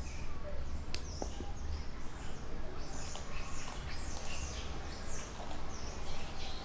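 Many short, high-pitched animal chirps and squeaks, repeating irregularly over a steady low rumble, with one sharp click about a second in.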